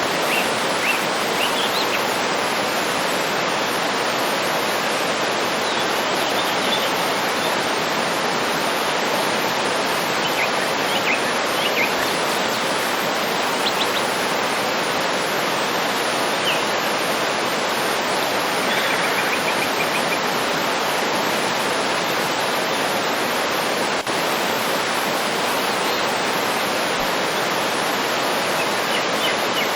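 Steady rush of a waterfall, with small birds chirping now and then over it, including a quick run of notes about two-thirds of the way through.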